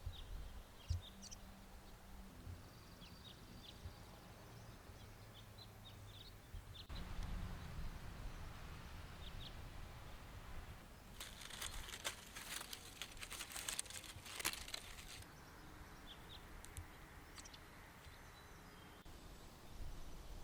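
Small birds chirping in short, high, scattered calls over a faint low background rumble. For about four seconds in the middle, a dense crackling rustle is louder than the birds.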